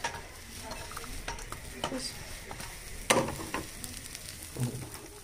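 Mashed potato sizzling as it fries in a non-stick pan, with a metal spatula scraping and knocking against the pan now and then; the loudest knock comes about three seconds in.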